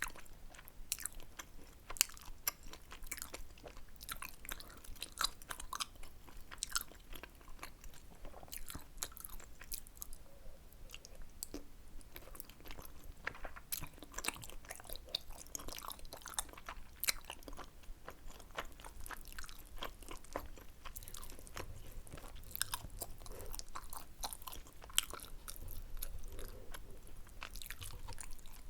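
A person chewing tteokbokki close to the microphone: wet mouth sounds with frequent, irregular sharp clicks.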